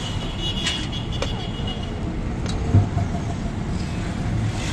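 Street traffic rumbling steadily. A high steady tone sounds for about two seconds near the start, and a dull thump comes just past halfway.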